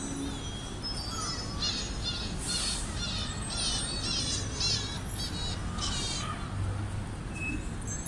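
Bird-like chirping calls: groups of quick, high chirps repeated again and again from about a second and a half in, stopping a little before the end, over crowd and city noise.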